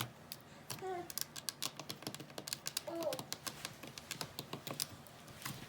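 Rapid, irregular clicking and tapping from hands wearing long glue-on nails working a batch of slime.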